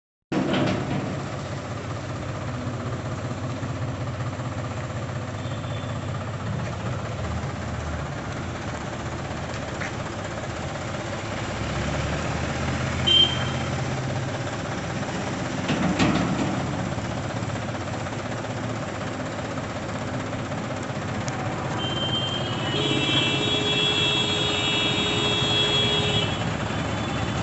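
Tractor backhoe loader's engine running steadily. A brief high tone sounds about halfway through, and a longer horn-like tone of several pitches at once sounds near the end.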